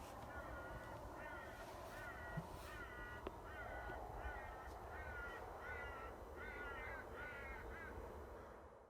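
Crows cawing: a run of about a dozen short harsh calls, roughly two a second, over a low steady rumble.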